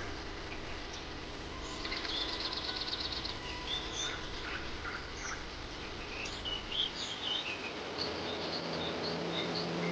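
Small birds chirping, with one fast high trill, over a steady background hiss; a low steady hum comes in near the end.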